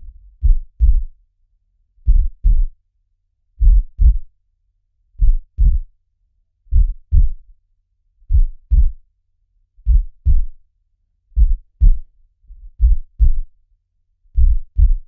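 Heartbeat recording: a slow, steady double thump (lub-dub), one low pair about every one and a half seconds.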